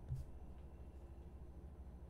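Low steady electrical hum with a single faint click shortly after the start.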